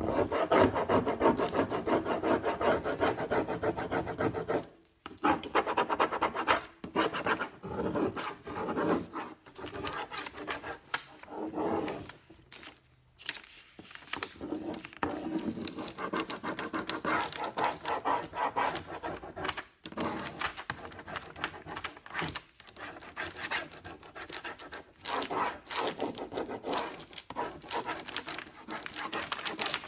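A rub-on furniture transfer being burnished onto the painted screen: a tool rubbed quickly back and forth over the transfer sheet in rapid scraping strokes. The rubbing comes in several runs of a few seconds each, with brief pauses between them.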